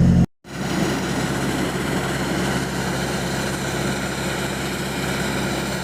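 Sandblaster blasting rust off the steel side of a lowboy trailer: a steady hiss of air and grit that starts a moment in, with the low hum of an engine running underneath.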